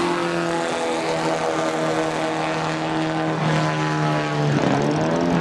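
Vintage sports-racing car engines droning steadily under power, with the pitch dropping sharply and coming back up about four and a half seconds in.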